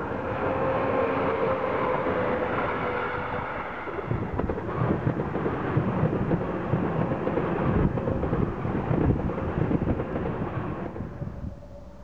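An electric locomotive hauling a regional train passes with a steady whine. About four seconds in, an ICE high-speed train rushes past much closer, with heavy rumbling and rapid knocking from its wheels on the track, then fades near the end.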